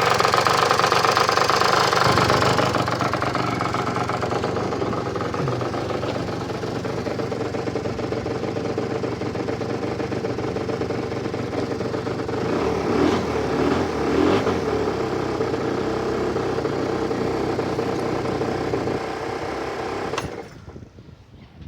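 Peugeot Jetforce scooter engine idling steadily, revved briefly twice about two thirds of the way in, then cut off suddenly near the end. The running noise is the one the owner is asking about: is it coming from the water pump?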